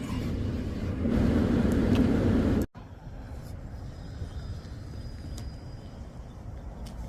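Steady low outdoor background noise that grows louder about a second in, then cuts off sharply at an edit. Quieter outdoor ambience follows.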